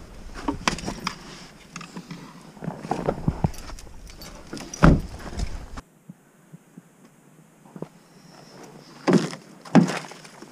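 Knocks, thumps and rustling from someone moving about and handling things at an open car door. The loudest knock comes about five seconds in and two more come close together near the end, with a quiet stretch of about two seconds between.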